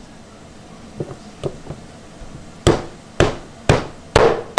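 Meat cleaver chopping chicken on a wooden chopping block: a few light taps, then four heavy blows about half a second apart.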